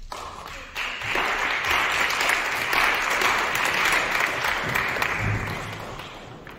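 A small audience applauding. The clapping swells about a second in and dies away over the last second or so.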